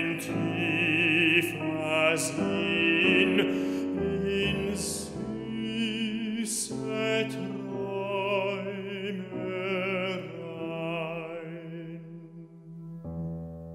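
Classical baritone singing a German art song with vibrato, accompanied on a grand piano. Near the end the voice stops and the piano carries on alone.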